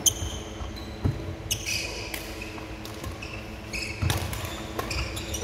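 Badminton doubles rally: sharp cracks of rackets hitting the shuttlecock a few times, with sneakers squeaking and thudding on the wooden court floor, echoing in a large hall.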